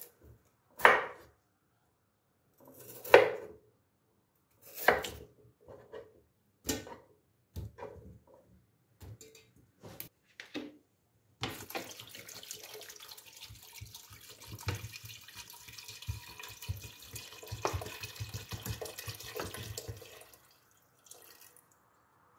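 A kitchen knife cutting potatoes on a wooden cutting board: a string of separate knocks. About eleven seconds in, water is poured from a plastic bottle into a stainless-steel pressure cooker pot, running steadily for about nine seconds before stopping.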